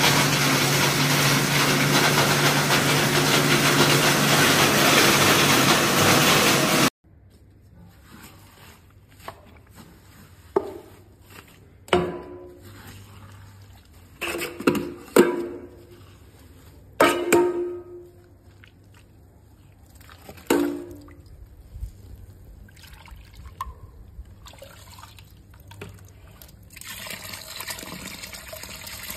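An electric corn sheller runs loudly with a steady hum while cobs are fed through, then cuts off suddenly about seven seconds in. A metal scoop then scrapes and scoops damp grain meal in a steel bowl, in a handful of short strokes. Near the end, liquid is poured onto the meal.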